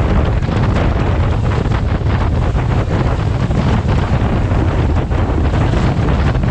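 Wind buffeting the microphone on a boat under way, a loud steady low rumble with rapid flutter, over the rush of water along the hull.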